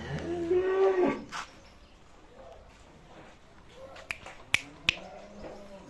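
A single moo from cattle, about a second long, rising and then falling in pitch. Three sharp clicks follow a few seconds later.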